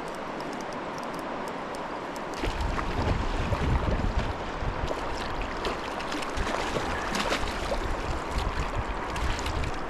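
River water rushing and splashing, with scattered small splashes; a low rumble joins about two and a half seconds in.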